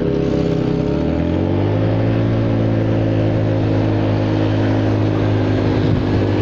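Honda Forza 300 scooter's single-cylinder engine through a modified exhaust, rising in revs during the first second or so and then holding a steady note at cruise. The rider finds it choked and sluggish, the revs not climbing, and blames the split exhaust tip he made himself.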